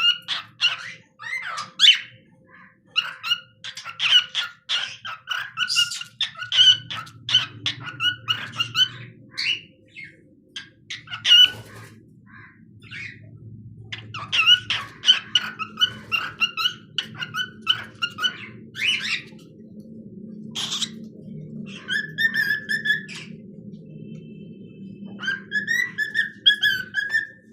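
Cockatiel chattering in quick runs of short chirps, then singing longer warbling whistled phrases about two-thirds of the way in and again near the end.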